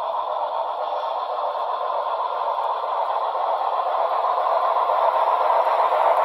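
A pair of HO scale Pennsylvania Railroad I1sa 2-10-0 steam locomotive models running along the track, their motors, gears and wheels whirring steadily and growing louder as they approach.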